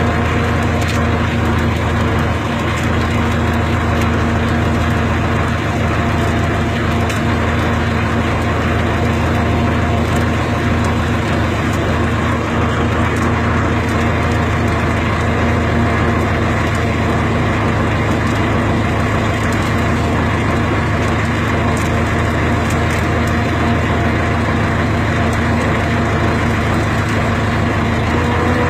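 Engine of a log-pulling winch machine running steadily at a constant speed, with an even, unchanging pitch.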